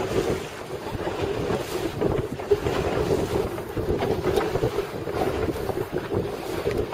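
Wind buffeting the microphone aboard an inflatable boat at sea, over a steady hum from the boat's motor and the wash of the water.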